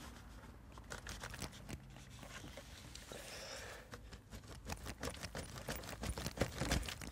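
Faint, irregular plastic clicks and knocks of a Ford Fiesta ST's stock air intake being pulled and wiggled by hand against the rubber grommets that hold it down. The clicks come thicker and louder in the second half.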